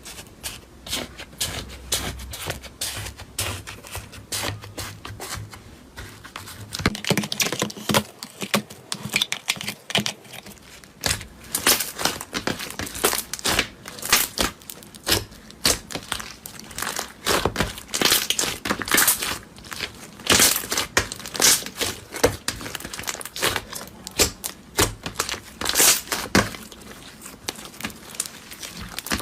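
Slime being squeezed and worked by hand, giving a steady run of irregular wet pops and crackles.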